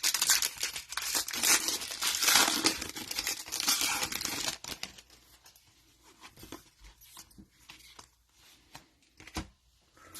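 Crinkly wrapper of a trading card pack being torn open and crumpled for the first four and a half seconds, then only a few faint clicks and rustles.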